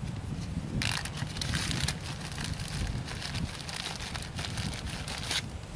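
Dry tinder being crumpled and rubbed by hand into a bird's nest: a dense crackling that starts about a second in and stops near the end, over a low wind rumble on the microphone.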